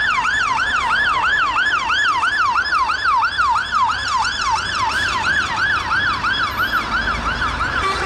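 UK fire engine's siren on a fast yelp, its pitch sweeping up and down about three to four times a second. It weakens a little near the end and cuts off just before the end.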